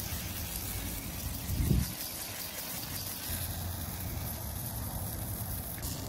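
WD-40 aerosol can spraying through its straw in a long, steady hiss, over a low rumble, with a brief thump about two seconds in.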